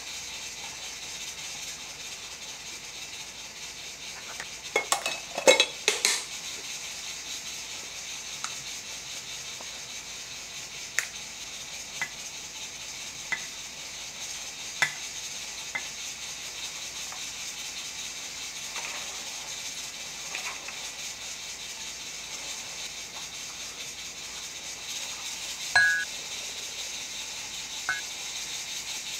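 Kitchen dishes and utensils clinking and clattering during cooking, with a cluster of louder clatters about five seconds in and scattered single clinks after, over a steady hiss. A short high beep sounds near the end.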